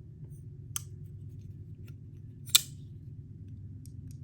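Folding knife's steel blade and lock mechanism clicking as the lock is worked: a light click about a second in, then a sharp, loud metallic snap about two and a half seconds in.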